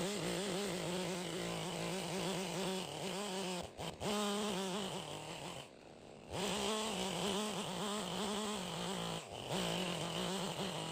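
Chainsaw running at high revs while cutting along a log to square a face. Its pitch sags a little under load, and the engine drops back briefly a few times, longest about halfway through, before revving up again.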